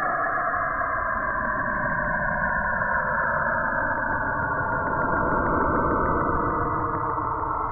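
Saturn kilometric radiation (Saturn's 'auroral music') recorded by Cassini's radio and plasma wave instrument, played as sound with time sped up 22 times and frequencies lowered 44 times: a dense, buzzy drone of sweeping tones. Several tone bands glide slowly downward.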